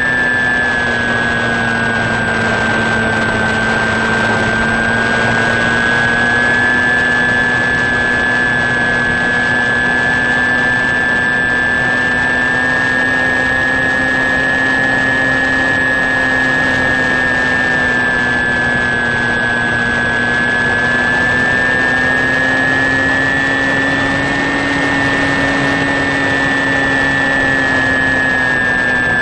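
Electric pusher motor and propeller of an HK Sky Eye RC plane in steady cruise flight, picked up by its onboard camera: a constant whine with a higher and a lower tone whose pitch dips slightly a few seconds in and rises again near the end, over a steady rush of noise.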